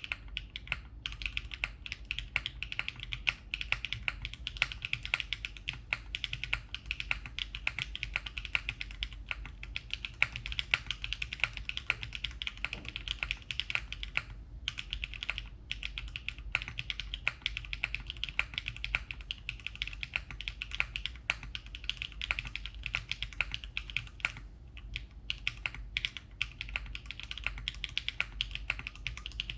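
Typing on a Spectacle 60 mechanical keyboard with HMX × Neo Amber switches, an aluminium plate and GMK keycaps: a fast, steady stream of keystroke clacks with two brief pauses.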